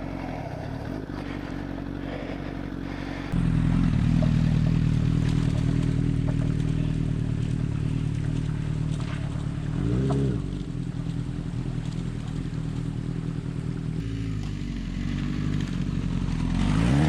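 Honda CBR1000RR's inline-four engine running at a low idle. About three seconds in it gets suddenly louder and keeps running, with brief blips of the throttle about ten seconds in and again near the end.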